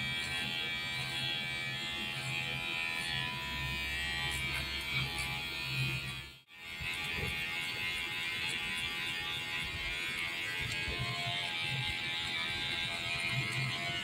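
Cordless electric hair clipper running with a steady high whine while cutting hair over a comb to blend a fade, with a short break about halfway through.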